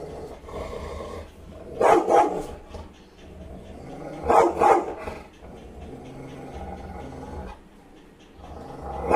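A Rottweiler barking in short double barks: a pair about two seconds in, another pair about halfway, and a third pair at the very end.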